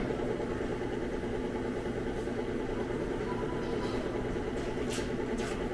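Chocolate fountain's motor running with a steady hum, the chocolate circulating down its tiers, with a few light clinks near the end.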